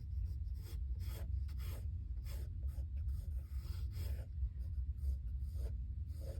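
Pencil scratching on sketchbook paper in a run of short strokes, a few a second, over a steady low hum.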